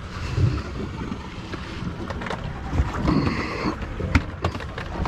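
Wind rumbling on the microphone aboard a small boat, with a few sharp knocks on deck, one about four seconds in as a cooler lid is handled.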